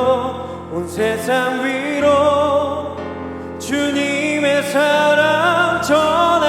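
Worship song: a singer holding long notes with vibrato over a sustained accompaniment, with short breaks between phrases.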